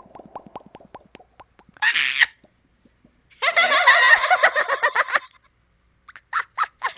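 Rapid mouth pops from a person's lips, many a second, for about the first second. Then a short high-pitched squeal and a longer, loud, warbling high vocal trill, like a gobble.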